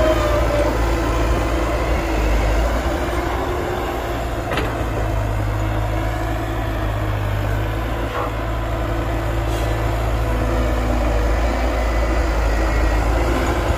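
Heavy diesel engines of an excavator and dump truck running steadily during loading, with two short knocks about four and a half and eight seconds in.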